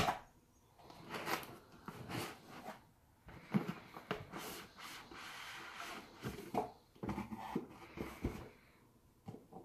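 A white cardboard product box sliding out of a cardboard shipping box: cardboard rubbing and scraping in several separate strokes, with a few knocks of handling.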